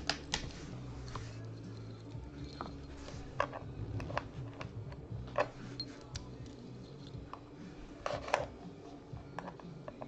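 Faint background music playing, with scattered light clicks and taps and one louder knock about eight seconds in.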